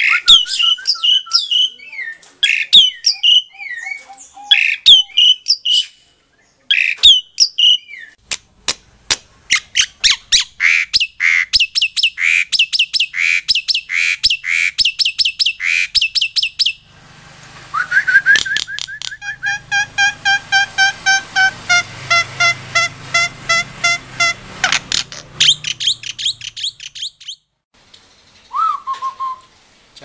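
Caged songbirds calling and singing. First come sharp, varied chirps, then a fast run of repeated high notes, then a different song of clear whistled notes that stops a few seconds before the end. One short whistle follows.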